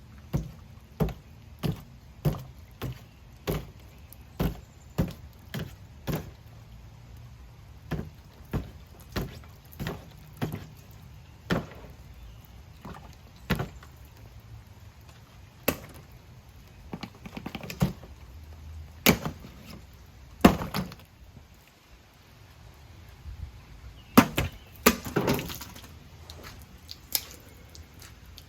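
Double-action out-the-front (OTF) knife snapping its blade out and back again and again: sharp clicks about every half second at first, then spaced out, with a few louder clusters later on.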